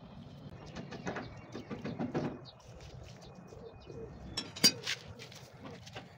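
Hand work on a sand-cement mortar bed for marble flooring: a steel trowel scraping and spreading mortar, with a few light knocks and one sharp knock about four and a half seconds in.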